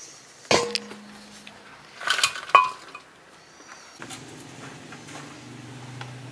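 Stainless steel dishes clinking: a sharp clank with a ringing tone about half a second in, then two lighter clinks about two seconds in, as steel plates and bowls are handled and set down on a wooden table.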